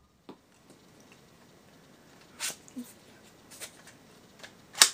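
Stock, unmodified spring-powered Nerf Nite Finder blaster firing a foam dart: a sharp snap about halfway through, then a few light clicks, and a second, louder snap at the very end.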